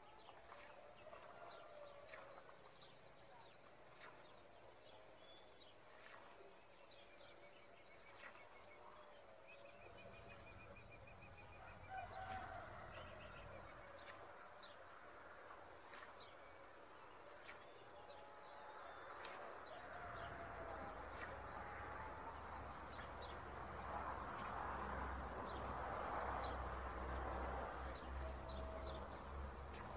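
Birds chirping, whistling and trilling all round, with a low rumble that comes in about a third of the way through and grows stronger in the second half, joined by a rustling hiss near the end.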